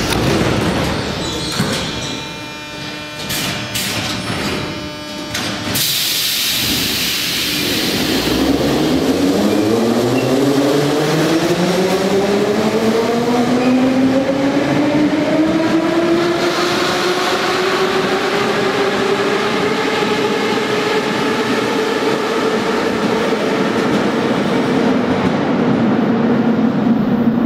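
Moscow Metro 81-717/714 train departing: the doors shut with a thud, a few sharp clicks and knocks follow, then from about eight seconds in the traction motors' whine rises in pitch as the train accelerates away, several tones climbing together and levelling off over the rumble of wheels on rail.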